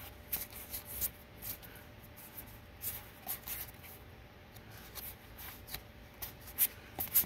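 Magic: The Gathering trading cards being handled and flipped through, a string of light, irregular clicks and slides, with a couple of sharper snaps near the end.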